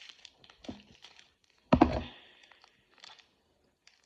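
Foil wrapper of a Pokémon booster pack crinkling and tearing as it is handled and opened, with one loud bump just under two seconds in.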